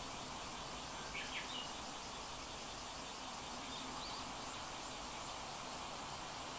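Steady background hiss with two faint, short high chirps, one about a second in and another near four seconds.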